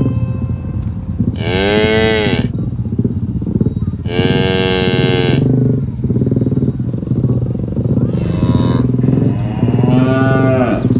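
Cows mooing: four long moos, two loud ones in the first half and two fainter ones near the end, over a steady low rumble.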